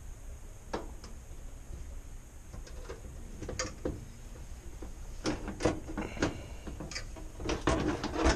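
Metal clicks and clunks from an oven door's hinges being released and the door handled. A few scattered knocks, then a denser clatter over the last three seconds.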